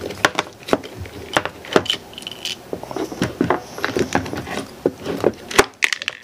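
Irregular clicks and knocks of plastic and metal parts as a corded screwdriver's motor, stator and switch assembly is lifted out of its opened plastic housing, with a short high tone about two and a half seconds in.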